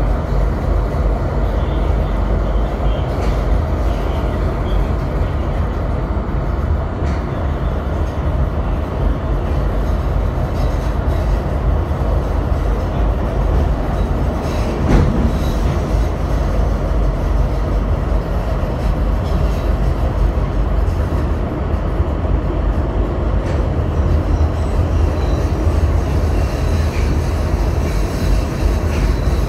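Chicago CTA Brown Line elevated train heard from inside the car while it runs along the elevated track: a steady, deep rumble of wheels on rail. There is one sharp click about halfway through.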